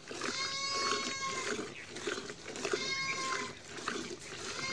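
A farm animal gives long, high, steady bleating calls, two in full and a third starting near the end, about two seconds apart. Under them, hand-milking squirts of milk hit a steel bucket in a quick, even rhythm.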